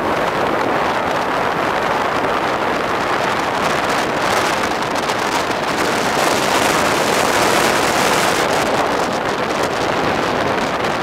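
Hawker Hunter jet flying overhead: a steady rushing jet roar that swells a little in the middle.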